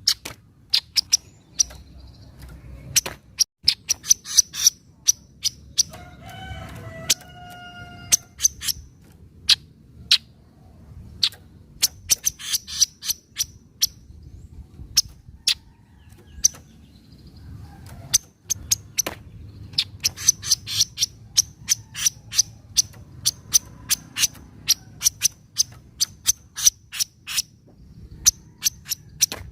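Kaso-kaso (chestnut-capped babbler) chattering in its dry 'nyecret' call: runs of sharp, quick high ticks of several a second, broken by short pauses. About six seconds in, a held, lower pitched call with overtones sounds for about two seconds.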